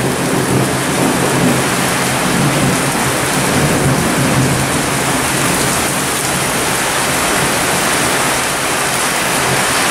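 Heavy rain pouring steadily onto the street and rooftops, with low thunder rumbling at the start.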